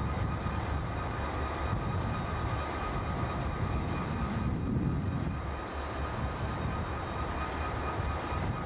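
Diesel-electric locomotives running steadily: a B&O unit with Chessie System units coupled behind, a continuous low engine rumble that swells slightly about halfway through.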